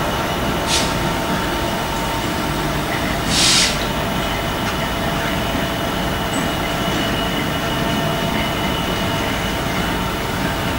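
A freight train hauled by EWS Class 66 diesel locomotives rolls past, a steady rumble of engines and wheels on the rails. Two short hisses come in the first few seconds, the second louder.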